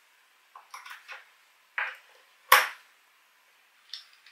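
Small brass hinges handled and set down on a pine tabletop: a string of light metal-on-wood clicks and knocks, with one sharper knock about two and a half seconds in. Near the end a drill bit clicks into the chuck of a cordless drill.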